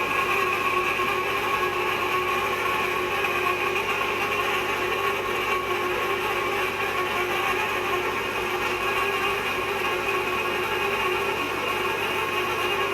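Hot tapping machine cutting into a steel pipe: a steady mechanical grinding with several held tones, unbroken throughout.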